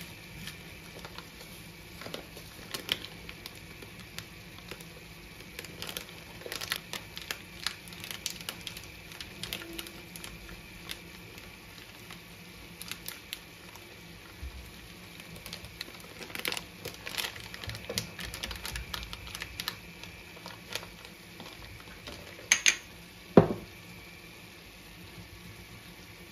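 Paper spice packets crinkling and rustling as dried herbs and ground seasoning are shaken out into a small ceramic bowl, with scattered light ticks and taps. Two sharper knocks come about three-quarters of the way through.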